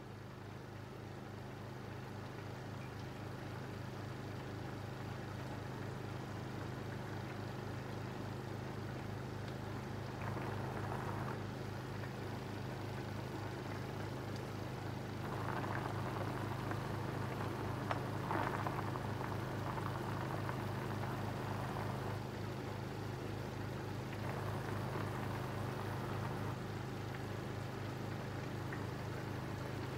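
Sauce boiling in a pot of braising fish, a fizzing bubbling that grows louder in stretches from about a third of the way in, over a steady low hum.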